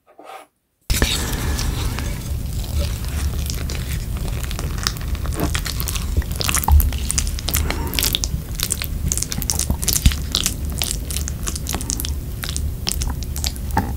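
A wooden spoon mixing curry sauce into rice in a ceramic bowl, starting about a second in. It is a steady wet stirring and squishing, with many light clicks and scrapes of the spoon against the bowl.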